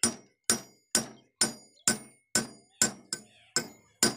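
Hand hammer striking a steel shaft in a tractor's brake assembly, metal on metal: a steady run of about ten blows, roughly two a second, each with a short ring.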